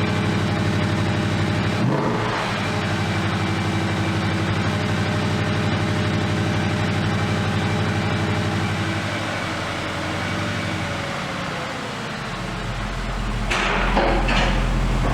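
Bentley Continental GT3-R's 4.0-litre twin-turbo V8, through its Akrapovic exhaust, idling at a steady pitch. About twelve seconds in the note changes to a deeper low hum, and a short noisy burst comes near the end.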